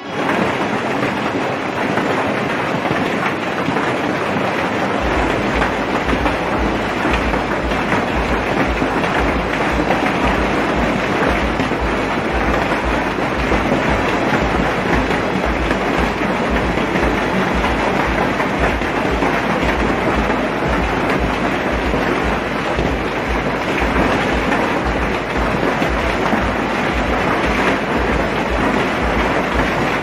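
Heavy rain pouring down, a steady dense hiss of drops splashing on the ground. A low rumble joins underneath about five seconds in and carries on.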